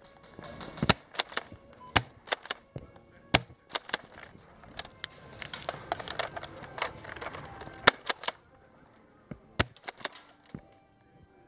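Airsoft guns firing: a dozen or so sharp, irregular pops, some close together, over a background of rustling and movement. Likely includes a tri-shot airsoft shotgun.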